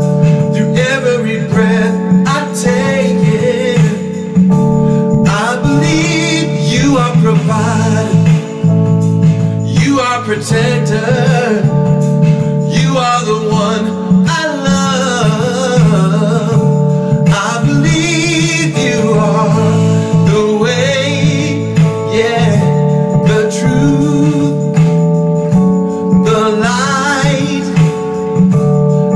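A man singing a worship song with guitar accompaniment.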